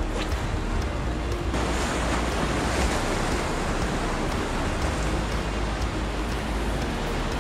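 Heavy swell breaking and washing over shore rocks: a steady surf roar that swells up about a second and a half in.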